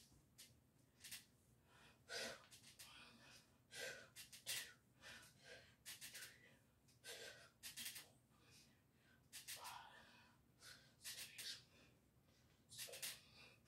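A man's short, forceful breaths, puffs and gasps through the mouth, repeated irregularly about once or twice a second: effort breathing during dumbbell bicep curls.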